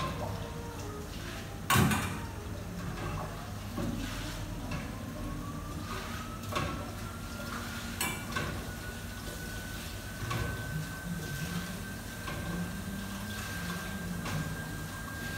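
Commercial kitchen working sounds: scattered knocks and clatter of dishes and utensils over a steady low hum, with one louder knock about two seconds in. A faint high tone slides upward from about four seconds in and then holds steady.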